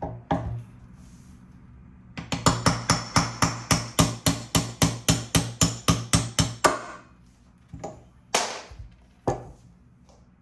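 Hammer blows on the front wheel hub of a Segway Ninebot G30 Max scooter during a wheel bearing replacement. A couple of knocks, then a fast even run of strikes, about five a second for some four and a half seconds, then a few single blows.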